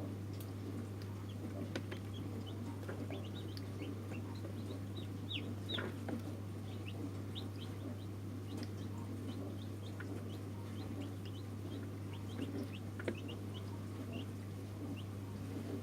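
Newly hatched chicks peeping: many short, high, falling chirps, scattered and overlapping, over a steady low hum.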